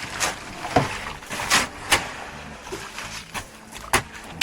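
Shovels working wet concrete during a slab pour: a run of short scraping and slapping strokes at uneven intervals.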